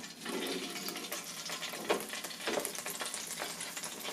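Chicken wings sizzling and crackling in hot grease in a just-opened air fryer basket, with a few louder pops.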